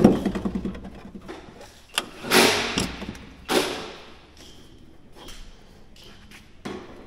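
Heavy truck batteries being handled in a steel battery tray: a few loud clunks and scraping bursts as the batteries are set down and shifted.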